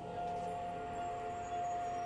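Drum corps front ensemble music: one long, steady ringing tone held throughout, with softer tones beneath it.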